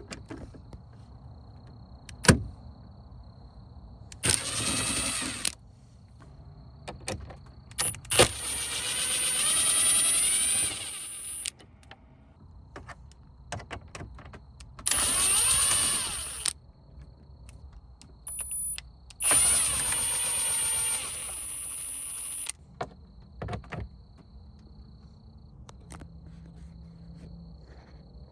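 Cordless electric screwdriver running in four separate bursts of one to three seconds, a whining motor whose pitch shifts as it backs screws out of the dashboard frame. Sharp clicks and taps of the tool and parts come in between.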